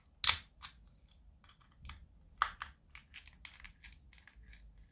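A run of short clicks and scrapes as a small tool works at the metal pins of a GU10 LED lamp, with a sharp click about a third of a second in and another about two and a half seconds in, then a quicker patter of small clicks.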